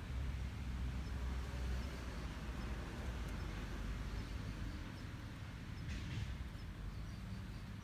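Outdoor background: a low steady rumble with a faint high chirp repeating about twice a second, and a brief rustle about six seconds in.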